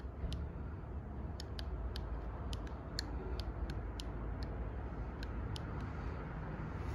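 Flipper Zero's buttons clicking under a thumb: a dozen or so short, sharp, irregular clicks as the menu is scrolled and a selection made, over a steady low background rumble.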